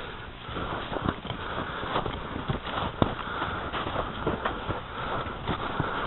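Footsteps in snow, a person walking steadily, with irregular soft knocks several times a second.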